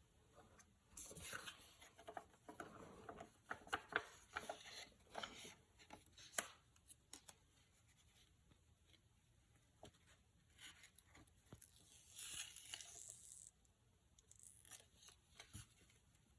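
Thin plastic film being handled: crinkling and tearing with sharp little clicks, in two spells, the first longer than the second.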